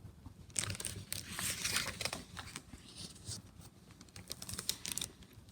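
Pages of a picture book being turned and handled, a crinkly paper rustle with small clicks, busiest in the first half.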